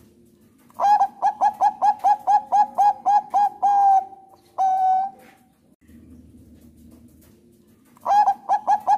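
Zebra dove (Thai 'perkutut bangkok') cooing: a fast run of about a dozen short staccato notes, roughly four a second, ending in a longer held note, then a second long note after a brief pause. A new run of notes begins near the end.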